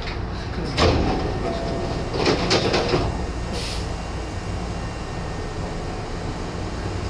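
Nose Electric Railway 1700 series electric train running with a steady low rumble. A clattering knock comes about a second in, a cluster of knocks follows between two and three seconds in, and a brief high hiss comes just after.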